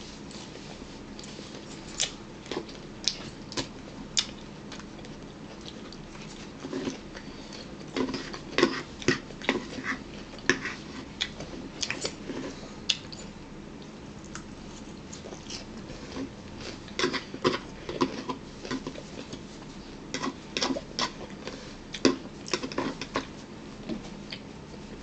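Irregular clusters of short clicks and smacks from people eating at a table, mouth and utensil sounds.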